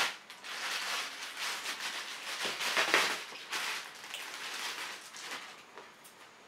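Clear plastic bag crinkling and rustling as a monopod is slid out of it, loudest about three seconds in and dying away near the end.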